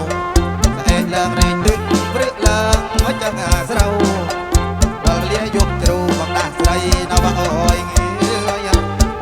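Amplified kantrum band playing an instrumental passage: a steady drum beat over a bass line, with a sliding melodic lead on top.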